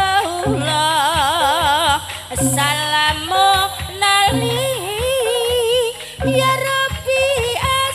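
Javanese devotional singing (syi'iran) with drum accompaniment: a solo voice draws out long melismatic phrases with a wide, wavering vibrato over low drum strokes.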